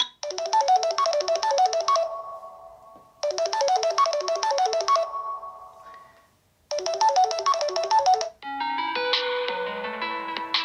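Samsung Galaxy Note 10 Lite ringtone: a short melody of quick, high notes played three times, each run ending in a fading ring. Near the end a different ringtone with lower, longer notes begins.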